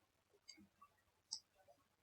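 Near silence broken by two short, faint clicks, about half a second in and again a little past the middle, typical of a computer mouse being clicked.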